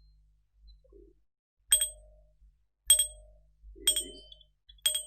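Wired electric doorbell ringing: its striker hits the metal chime four times, about once a second, each strike a sharp ding that rings on briefly.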